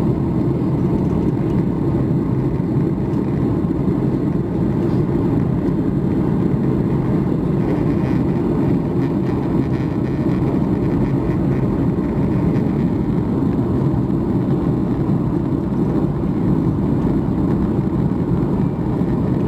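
Steady cabin noise of a Boeing 737 MAX 8 in flight: airflow and the CFM LEAP-1B engines making an even, deep rumble, heard from a window seat inside the cabin.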